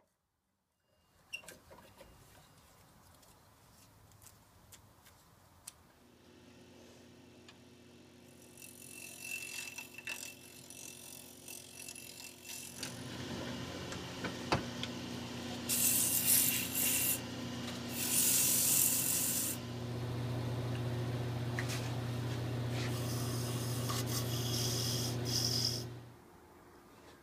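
Delta wood lathe motor running with a small wooden disc spinning on it, while sandpaper is rubbed against the turning wood in a few hissing passes, loudest a little past halfway. The lathe stops suddenly shortly before the end.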